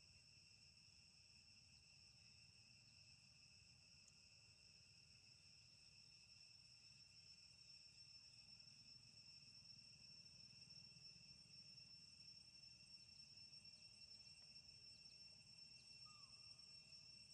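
Faint, steady insect chorus: a continuous high-pitched trill over a low rumble, with a couple of faint short chirps near the end.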